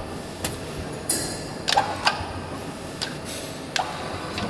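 Irregular light metal clicks and knocks, one with a short ring about a second in, from the steel parts of a large Schunk PZN-plus 380 three-jaw gripper being handled and fitted during assembly. A steady low hum runs underneath.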